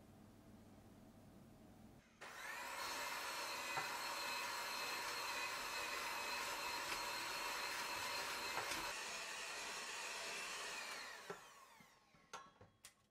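Electric hand mixer whirring as its beaters whip eggs and sugar in a stainless steel bowl toward a pale, creamy foam. It starts about two seconds in, runs steadily, then winds down with a falling pitch near the end, followed by a few light knocks.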